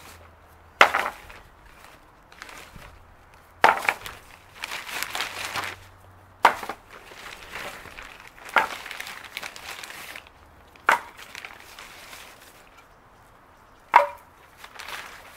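Pieces of split firewood being stacked, wood knocking on wood. There are about six sharp knocks a couple of seconds apart, with rustling and handling noise between them.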